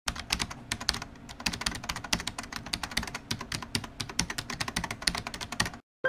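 Fast typing on a computer keyboard: a quick, uneven run of key clicks that cuts off shortly before the end.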